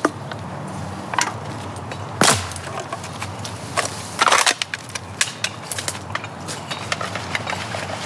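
Scattered sharp knocks and crackles of hands and feet at work by a loaded bottle-collecting cart on leaf-strewn ground, with two louder knocks a couple of seconds apart early on and a run of smaller clicks after.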